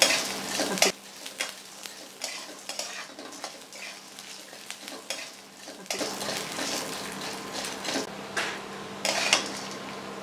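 A spatula stirring and scraping chana dal and peanuts roasting in a little oil in a metal kadai, the grains rattling against the pan over a light sizzle. The stirring is quieter for a few seconds in the middle, then picks up again.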